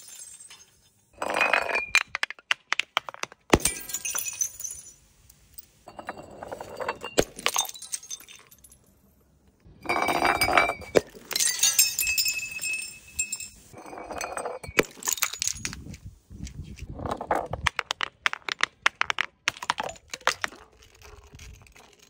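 Glass wine bottles tumbling down concrete steps, clinking and knocking against each step with a ringing glassy chime. The clatter comes in about eight separate runs with short pauses between them.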